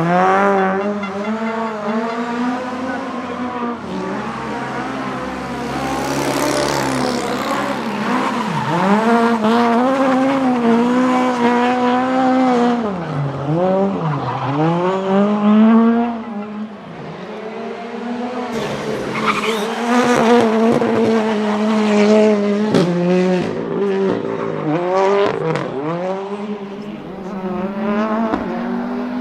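Rally car engines driven hard, revs climbing and dropping again and again through gear changes and lifts, with tyre noise. The sound eases off briefly just past the middle, and sharp clicks and cracks come through in the second half.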